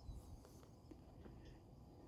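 Near silence: faint outdoor ambience, a low rumble with a few soft clicks.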